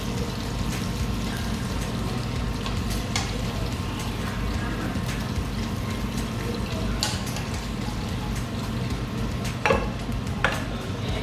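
Cutlery and a takeaway food container being handled, with scraping and a few sharp clicks, the loudest near the end, over a steady low hum.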